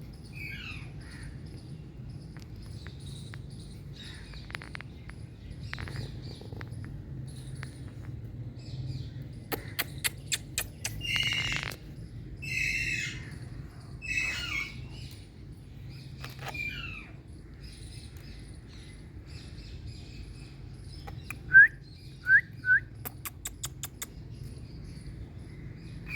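Pet Indian green parrot calling in scattered chirps and a few harsher squawks, with a quick run of clicks about ten seconds in. About two-thirds of the way through come three short, sharp rising chirps, the loudest sounds, over a steady low hum.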